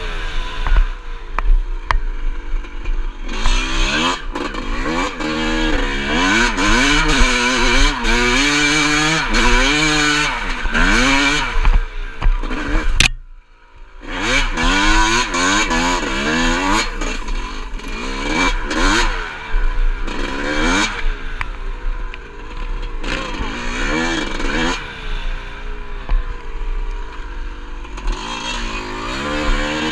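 Yamaha YZ two-stroke dirt bike engine being ridden hard, its pitch climbing and falling again and again with throttle and gear changes, over a steady low rumble of wind on the helmet camera. The sound cuts out briefly about halfway through.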